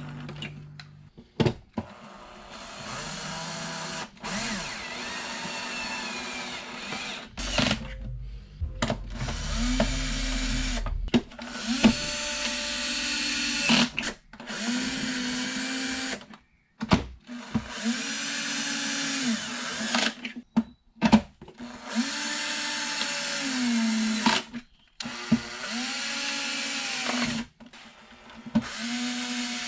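Cordless drill/driver driving screws into the jump box's plastic case in a series of short runs, each rising in pitch, holding, then winding down, with short pauses and clicks between them.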